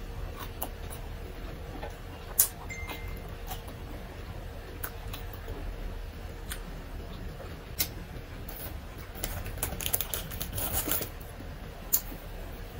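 A person chewing food close to the microphone: wet mouth clicks and smacks. A few sharp single clicks stand out, and there is a busier run of chewing about two thirds of the way through.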